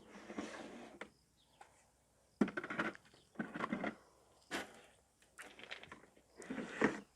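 Handling noises from unpacking pressure-washer parts: a few short bursts of rustling and rubbing, with a sharp knock about four and a half seconds in.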